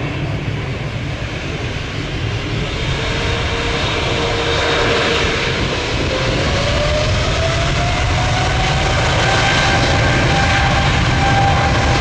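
Boeing 777-300ER's GE90-115B turbofans spooling up for takeoff: a whine rises in pitch about halfway through and then holds, over a steady deep rumble that grows louder.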